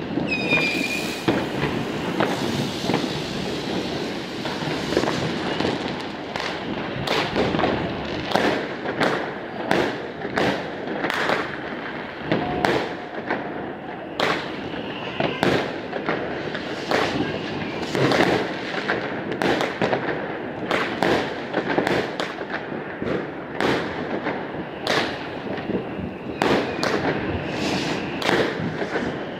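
Fireworks and firecrackers going off all around in a constant barrage of overlapping bangs and cracks, with a short whistle about a second in.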